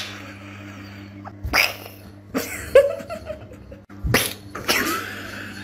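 Several short, sharp sneezes about a second apart, over a steady low hum.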